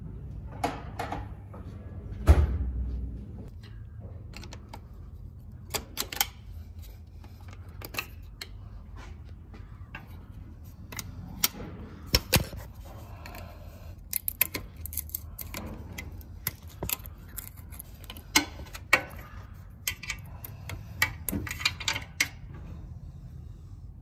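Metal parts and hand tools clinking and clanking irregularly while working under a vehicle, with one heavy clunk about two seconds in.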